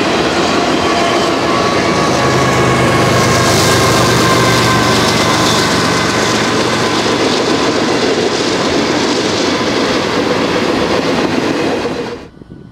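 A double-stack container freight train rolling past: a steady rumble and rattle of cars on the rails, with thin, high wheel-squeal tones drifting slightly down in pitch over it. It cuts off abruptly near the end.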